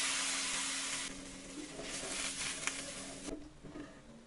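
Hot oil and fried spice paste sizzling as water is poured into the frying pan. The hiss weakens about a second in and dies out about three seconds in, with a few light clicks of the spatula and a low steady hum underneath.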